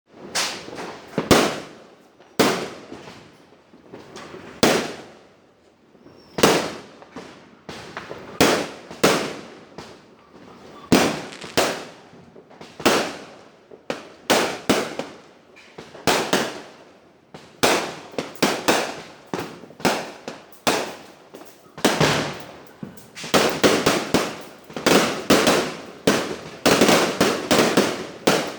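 Fireworks going off in a long series of sharp bangs, each with a short echoing tail, irregularly spaced at first and crowding together into an almost continuous crackle of explosions over the last several seconds.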